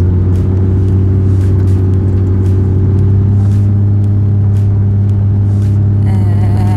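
Steady engine and road drone of a car driving at an even speed, heard from inside the cabin: a constant low hum with its overtones. About six seconds in, a wavering pitched sound, a voice or music, comes in over it.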